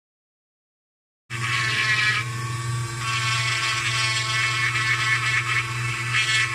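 Handheld rotary tool with a small sanding bit running against a wooden carving: a steady motor hum with a rough grinding hiss that swells and eases as the bit presses on the wood. It starts suddenly about a second in, after silence.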